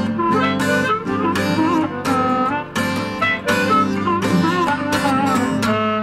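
Blues rock band playing an instrumental passage: a lead guitar line with bent notes over bass and drum hits.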